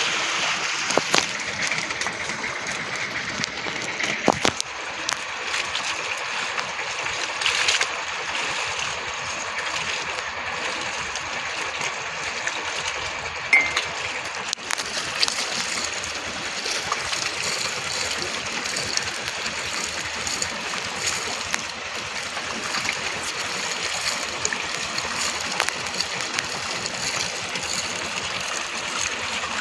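Sea water rushing and splashing along a moving outrigger boat's hull and outrigger, a steady wash broken by a few light knocks, the sharpest just under halfway through.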